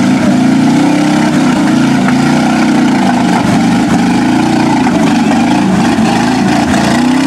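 Lifted Ford pickup mud truck's engine revving hard through the mud bog, its pitch rising and falling repeatedly as the driver works the throttle.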